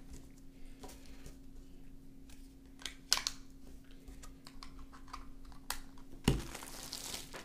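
Scattered plastic clicks and taps of a handheld walkie-talkie and AA batteries being handled as batteries are fitted into its battery compartment, with the loudest knock about six seconds in.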